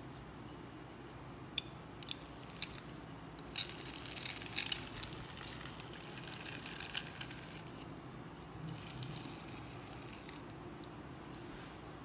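A few sharp clicks, then several seconds of crackling splashes and clinks of water and ice cubes in a steel bowl as a wooden hand sev press squeezes cornflour dough into the ice water, with a softer stir of water near the end.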